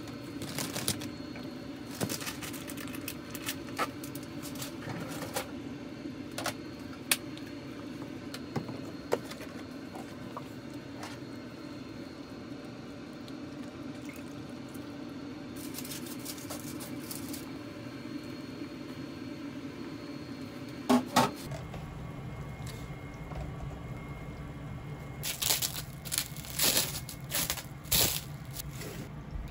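Mackerel fillets simmering in broth in a frying pan, the liquid bubbling steadily, with light utensil clicks and water poured in from a measuring spoon. The background changes about three-quarters of the way through, and near the end comes a run of crisp crinkling rustles of plastic wrap being handled.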